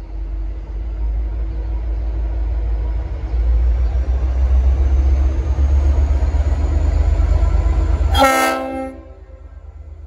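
Diesel locomotive rumbling as it draws in, growing louder over several seconds. Near the end comes one short blast, well under a second, of its Leslie RS5T five-chime air horn, sounding as a chord.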